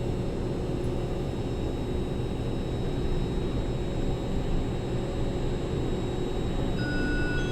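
Steady low rumble and hiss of an underground Muni Metro light-rail station, with a thin high steady tone joining near the end.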